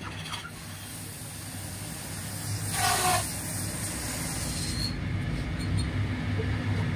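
Steady hum of the electric motor driving a belt-driven wood lathe, with a brief, loud, harsh noise about three seconds in.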